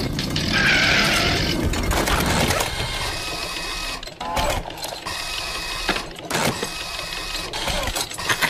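Cartoon sound effect of a scissor-arm extending grabber working: a mechanical rattling and clicking, with a few sharper clicks about four and six seconds in.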